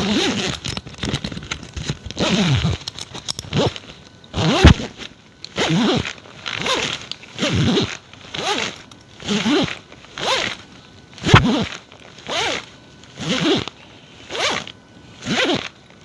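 A zipper being pulled open and closed over and over, about one quick rasping pull a second, each stroke sliding in pitch; the first few seconds are more irregular.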